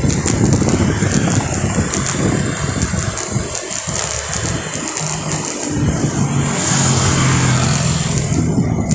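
Wind buffeting the microphone of a moving rider, mixed with road traffic; a steady engine hum comes in about halfway through.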